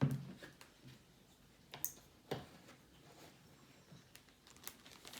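Handling noises from craft materials on a tabletop: a sharp knock right at the start, two more knocks about two seconds in, then scattered small clicks and taps.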